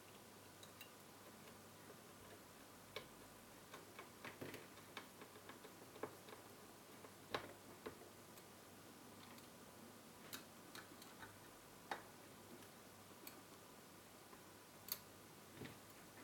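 Light, irregular clicks and taps of a small screwdriver, screws and metal parts as a car head unit's circuit board is screwed back into its chassis, with quiet room tone between them.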